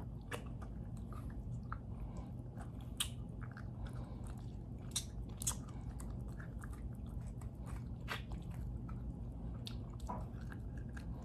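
A person chewing food close to the microphone, with scattered small crunchy clicks, likely dried tofu. Underneath runs a steady low hum from an air conditioner.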